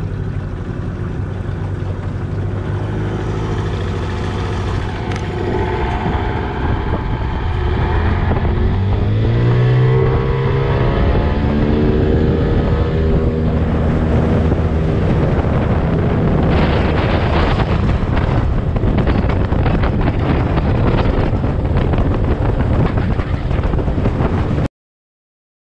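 25 hp Tohatsu two-stroke outboard motor pushing a small boat along, its revs climbing about nine seconds in as it is throttled up, then running steadily at speed with wind buffeting the microphone. The sound cuts off suddenly near the end.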